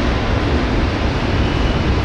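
Steady, deep rumbling noise on a train ferry's enclosed train deck as a freight flat wagon loaded with steel pipes rolls slowly by on the rails during shunting.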